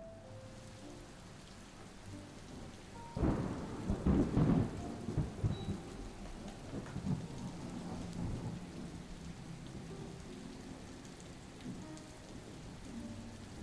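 Steady rain falling, with a roll of thunder that breaks in suddenly about three seconds in, rumbles loudest for a couple of seconds and fades away over the next few seconds.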